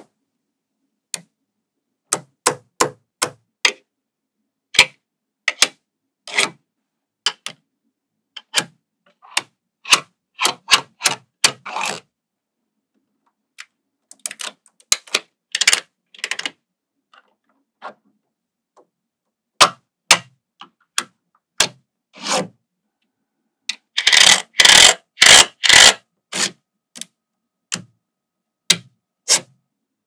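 Small metal magnetic balls clicking as they are snapped onto the model by hand, in scattered sharp clicks. About three-quarters of the way through comes a quick run of louder clicks close together.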